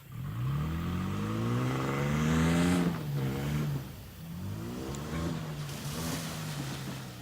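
Toyota Tacoma pickup's engine revving up, its pitch climbing for about three seconds before dropping sharply, then a second, smaller rise and fall.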